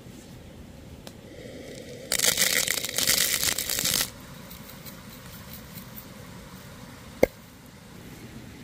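Whole black peppercorns, chilli flakes and coarse salt poured from a wooden dish into a wooden bowl: a dense rush of many small clicks lasting about two seconds. About seven seconds in, one sharp knock.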